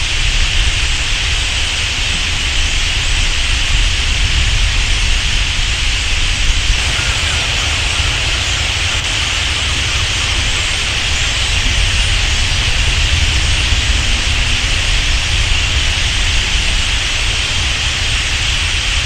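A huge flock of common starlings lifting out of a reedbed roost all at once, a steady dense rush of wings and massed chatter: the dawn departure, or "explosion", from the roost.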